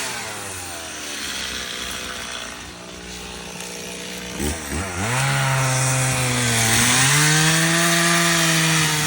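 Two-stroke chainsaw falling from full throttle to idle, idling for about four seconds, then revving back up and running at high revs as it cuts a log, its pitch sagging briefly under load near the end before it recovers.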